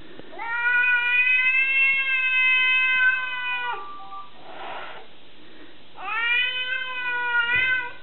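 Long-haired cat yowling at another cat through a glass door: two long, drawn-out hostile yowls, the first about three seconds and the second nearly two, each rising quickly and then holding a steady pitch.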